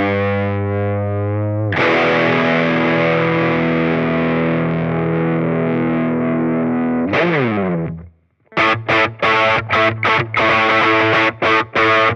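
Distorted electric guitar: a Gibson SG through an EarthQuaker Devices drive pedal into a small Fender Champ amp. A chord rings, a new chord is struck and held for several seconds, then slides down the neck, and after a short break the guitar plays short choppy chord stabs.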